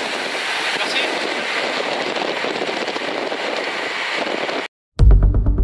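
Steady rushing wind and road noise from moving along with a pack of racing cyclists. It cuts off suddenly near the end, and music with a steady beat starts.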